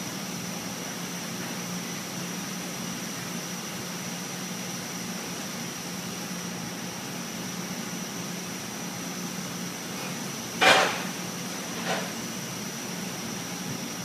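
Commercial flight-type conveyor dishwasher running, a steady machine noise with a low hum and a high whine. About eleven seconds in come two sharp knocks a little over a second apart, the first much louder.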